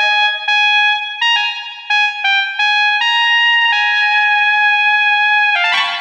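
Basuri 'telolet' musical bus horn playing a melody: a quick run of short pitched notes, then one long held note, broken off by a brief rough burst near the end.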